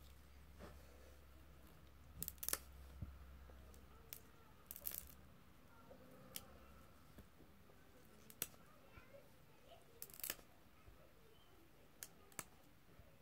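Crunchy putty with sprinkles mixed in, pressed and pulled by hand, giving scattered sharp clicks and crackles, the loudest cluster about two seconds in. A faint low hum under the first few seconds.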